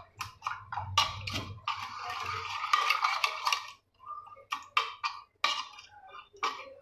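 Metal spoon stirring and beating a thin gram-flour batter in a bowl, clinking and scraping against the bowl in quick, irregular strokes, the strokes sparser near the end.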